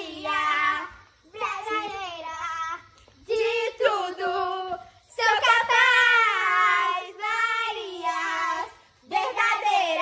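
Girls singing a song together without instruments, in held, wavering phrases broken by short pauses.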